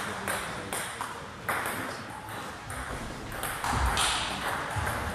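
Table tennis ball clicking sharply off the table and bats in a quick run of taps, a few a second, in a sports hall with voices in the background.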